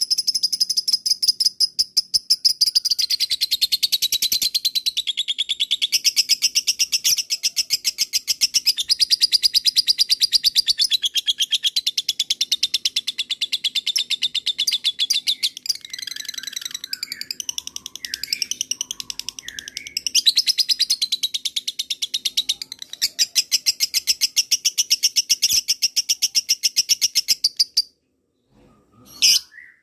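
Lovebird singing a long, very rapid chattering trill, the 'ngekek panjang' that lovebird keepers prize, broken around the middle by a few separate chirps and stopping near the end, followed by one short call.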